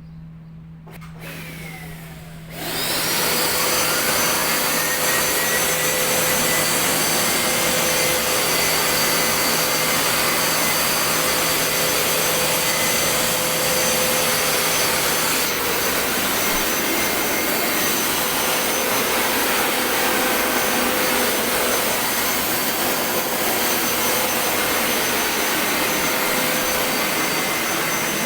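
Carpet-washing machine's motor switching on about two and a half seconds in, its whine rising as it spins up, then running steadily and loudly with a high whine.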